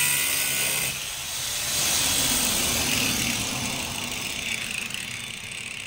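Angle grinder grinding rusty steel bodywork, a steady high-pitched whine and rasp that eases off briefly about a second in, then bites again and slowly dies away toward the end.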